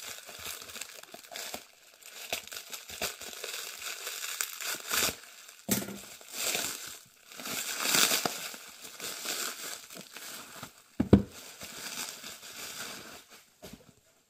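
Plastic shrink wrap around a stack of old hardback books being slit with a knife and pulled off, crinkling irregularly. Two thumps are heard, one about six seconds in and a louder one about eleven seconds in.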